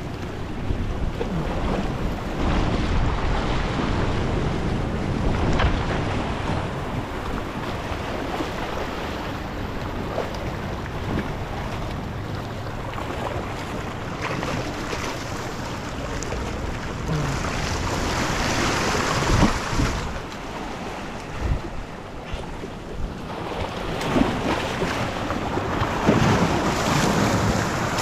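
Waves washing and breaking against jetty rocks, with wind buffeting the microphone. The surf comes in louder surges now and then.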